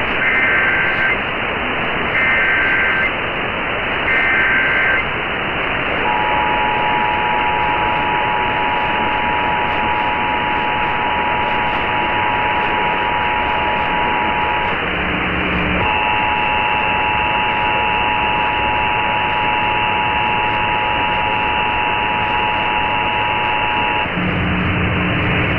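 Emergency Alert System test received over a hissy radio. Three short screeching bursts of the SAME data header come first, then the two-tone attention signal sounds for about eight seconds. After a one-second break with a low buzz, the attention signal resumes with an added higher tone for another eight seconds, ending in a low buzz.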